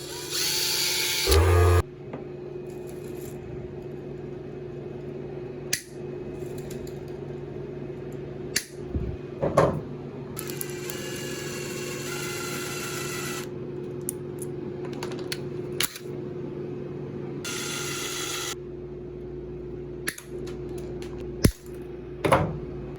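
Workbench sounds over a steady low hum: three short bursts of a small tool whirring with a high whine, the longest about three seconds, and scattered sharp clicks and knocks.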